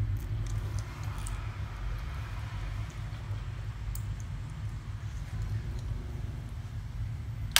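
Steady low hum, with a few faint clicks of small clam shells as a child eats the clams by hand; one sharp click near the end.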